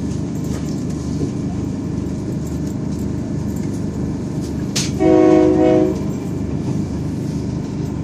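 Train running with a steady low rumble, heard from inside the carriage. A little past halfway there is a sharp click, then the train's horn sounds for about a second.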